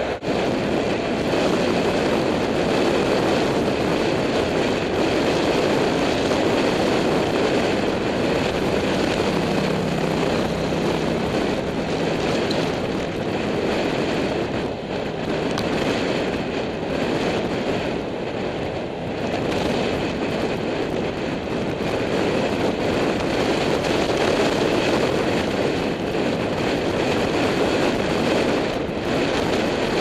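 Steady rush of wind buffeting the microphone of a camera on a road bike at speed, mixed with tyre and passing-traffic noise, with a short low hum about a third of the way in.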